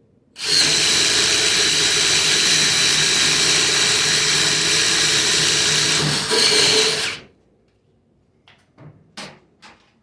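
Ridgid brushless 1/4-inch impact driver driving a 3/4-inch self-feeding spade bit through redwood, running steadily under load for about seven seconds. It dips briefly, surges once more and then stops. A few light knocks follow.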